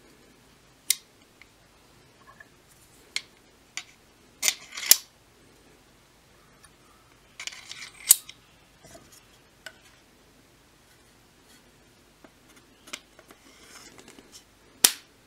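Small metal sword fittings, thin washers and the guard, clicking and scraping against each other and the blade as they are slid on and seated against the copper collar. Several separate clicks, a scraping run of clicks around the middle, and a sharp click near the end.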